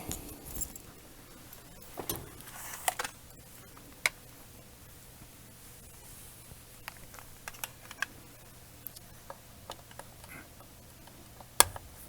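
Scattered light clicks and taps of tools and parts being handled on a workbench while a heat gun is fetched, with a louder click near the end.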